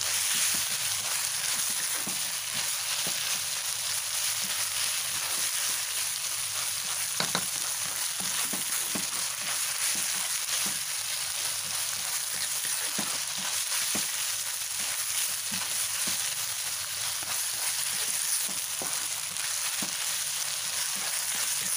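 Shredded chicken stir-fry with torch ginger flower sizzling steadily in hot oil in a wok, while a spatula stirs it, scraping and tapping the pan in scattered short knocks, a sharper one about seven seconds in.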